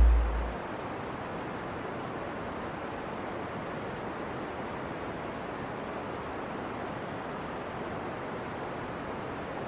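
Steady, even rushing hiss of steam venting from a volcanic fumarole. A deep low boom fades out in the first half second.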